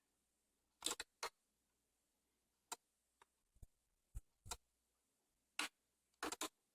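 A dozen or so short, sharp clicks and light knocks at irregular intervals, with near silence between them.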